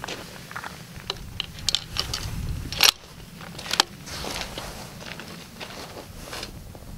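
Short sharp clicks and knocks from a bolt-action rifle and shooting gear being handled, the loudest about three seconds in, with footsteps crunching on gravel.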